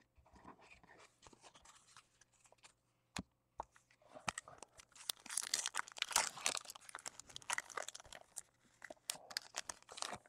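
Foil wrapper of a trading-card pack being torn open and crinkled by hand, loudest from about four to eight seconds in and again near the end. A single sharp click comes about three seconds in.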